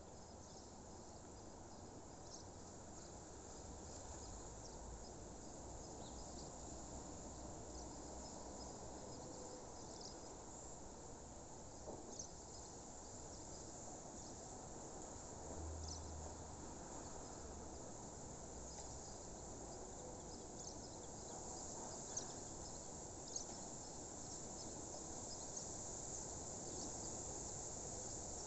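Faint, steady high-pitched chirring of crickets, growing a little louder near the end, with a few short sharp chirps scattered through it and a soft low rumble now and then underneath.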